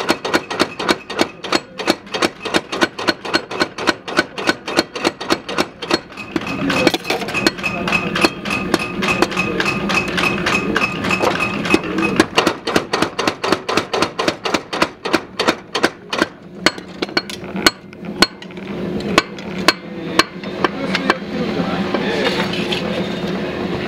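Power hammer pounding a red-hot steel knife blade at the forge, several sharp blows a second in a steady rhythm. The blows thin out to a few single strikes toward the end, over a steady hum.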